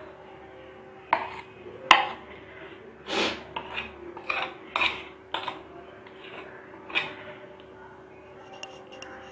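Steel spoon scraping and knocking against a bowl while thick ground urad dal batter is scooped out, a series of irregular clinks and scrapes with the sharpest about two seconds in.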